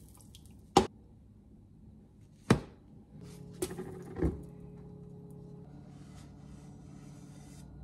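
Spatula and frying pan clacking: two sharp knocks, the first about a second in and the second about two and a half seconds in, then lighter knocks near four seconds. Under the later knocks runs a faint steady hum with a few held tones.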